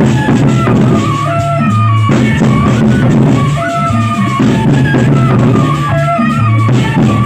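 Gendang beleq ensemble playing: large two-headed barrel drums beaten in a loud, steady rhythm, with low ringing tones and a short melodic figure above that repeats about every two seconds.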